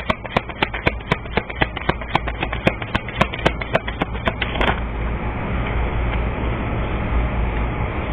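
A deck of tarot cards being shuffled by hand: a quick, even run of crisp slaps about four a second that stops about four and a half seconds in, leaving a steady low background hum and hiss.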